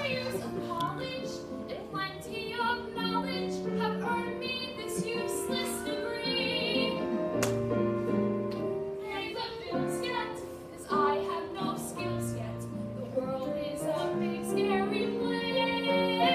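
A young performer singing a musical-theatre song over an instrumental accompaniment with held notes.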